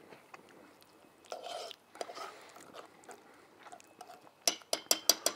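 Quiet mouth sounds of a person tasting a hot sauce from a spoon: a faint slurp, then near the end a quick run of sharp lip-smacks.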